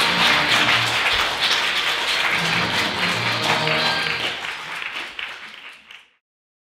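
Audience applauding, with music playing over it. Both fade out about five seconds in and cut off just after six seconds.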